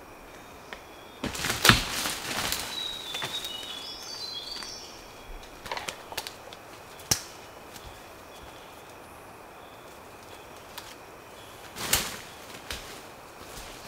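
Rustling and snapping of jungle undergrowth as a person pushes through and handles it, loudest about two seconds in and again near the end. A few seconds in there are short bird chirps in a falling run of notes, over a steady high hum.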